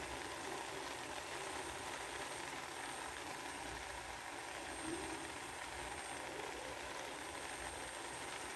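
Faint, steady hiss of grated carrot halwa cooking in a pot on the stove.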